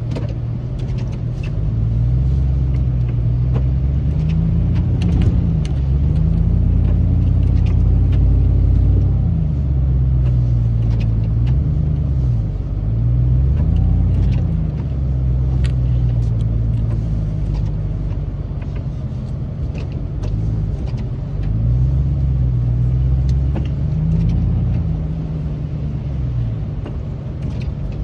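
Chevrolet Silverado 2500HD's 6.0-litre gas V8 heard from inside the cab, its pitch rising and falling several times as the truck moves back and forth plowing snow. Scattered light ticks throughout.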